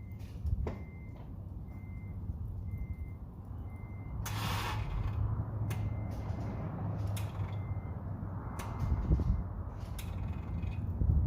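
Acura RSX dashboard warning chime beeping steadily, a little over one short beep a second, as the car is tried with the key and does not start. A brief rushing noise about four seconds in and a few sharp clicks sound over a steady low hum.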